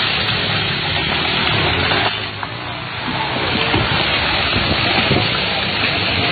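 Steady rushing noise of a mudslide: earth, mud and water pouring down a hillside, dipping briefly about two seconds in.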